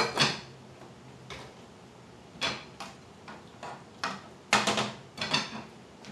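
Kitchen clatter from cookware being handled at a stove: a string of sharp clicks and clinks from a spice shaker and a glass pot lid, the loudest cluster about four and a half seconds in.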